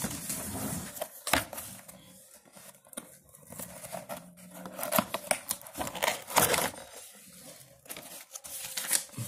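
A cardboard keyboard-and-mouse box and its packaging handled and opened by hand: irregular rustling, scraping and ripping noises of card and paper, loudest about five and six and a half seconds in.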